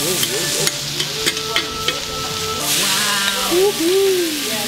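Yakisoba noodles and cabbage sizzling on a hot iron griddle as two metal spatulas toss and scrape them, with a few sharp clinks of the spatulas on the plate.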